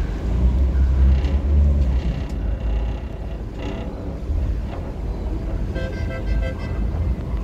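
Passenger ferry's engines and propeller wash running as the ferry pulls away from the wharf: a steady low rumble, heaviest in the first two seconds, with water and wind noise over it. A brief higher-pitched tone comes about six seconds in.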